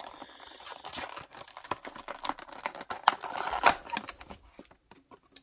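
Clear plastic blister from a diecast model's package being flexed and pried open by hand: crinkling and crackling with many quick sharp clicks, the loudest snaps about three seconds in.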